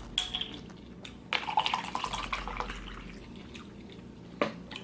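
Close-miked wet mouth sounds of someone eating, with a louder stretch from about one to two and a half seconds in and a sharp click near the end.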